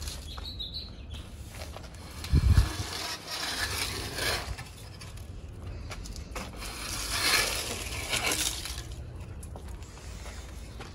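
Orange plastic fan rake scraping over dusty ground and dragging dry leaves and twigs, in long strokes, with a low thump about two seconds in.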